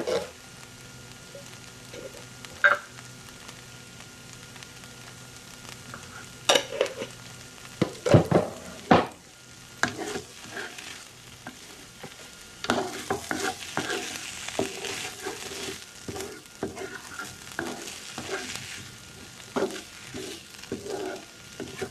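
Stir-fry of vegan meat pieces and vegetables sizzling in a nonstick frying pan as it is tossed and stirred, with a few sharp knocks of pan and utensil in the middle. The sizzling and scraping grow busier and louder over the last third.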